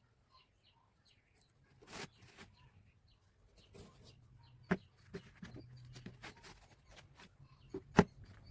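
A few sharp taps and knocks, the loudest one near the end, over faint bird chirping.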